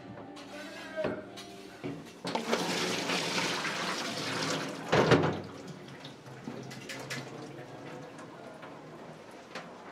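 Tap water running onto shredded potato in a plastic colander and splashing into a stainless steel sink, starting about two seconds in and stopping about five seconds in, with a sharp knock, the loudest sound, as it stops.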